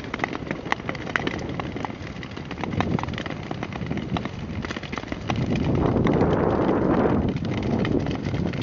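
Nordic tour skates scraping and gliding over black lake ice, with many sharp clicks of ski-pole tips striking the ice. A louder rushing stretch comes about halfway through.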